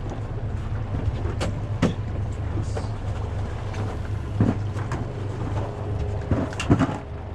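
A boat's engine running low and steady, with a handful of sharp knocks and clicks over it, the loudest near the end.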